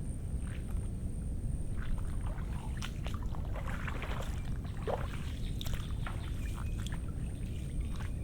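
Footsteps on wet, muddy ground, with irregular squelches, splashes and crackles bunched in the middle few seconds, over a steady low rumble.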